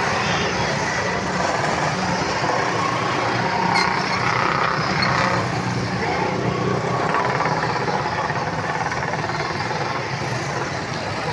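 Steady vehicle noise: a continuous engine hum and road noise, as of heavy traffic or a large vehicle running.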